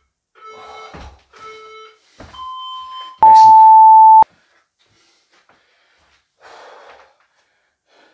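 Workout interval timer counting down: two short low beeps, a higher beep, then a long, very loud beep lasting about a second from about three seconds in, marking the end of a 20-second Tabata work interval.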